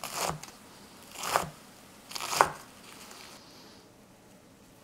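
Large kitchen knife cutting through a pile of fresh herbs on a wooden cutting board: three crunchy strokes about a second apart, then a quiet stretch for the last two seconds.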